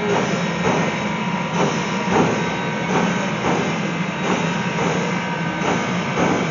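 Steam locomotive #165 running under power: a steady exhaust chuff about every two-thirds of a second over a continuous hiss and rumble.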